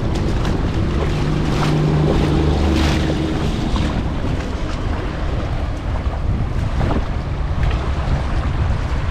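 Wind buffeting the microphone over surf on a beach. A low, steady engine-like hum rises about a second in and fades out by about four seconds.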